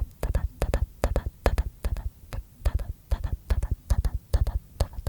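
Close-miked mouth sounds: a steady run of wet tongue-and-lip clicks and pops, coming in small clusters about every half second, each with a low thump.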